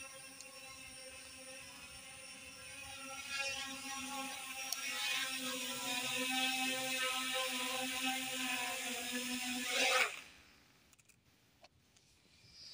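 Huanchenda H23 quadcopter's four motors and propellers running with a steady, many-toned whine that grows louder about three seconds in. Just before the end it surges briefly upward in pitch and then cuts off suddenly as the motors stop.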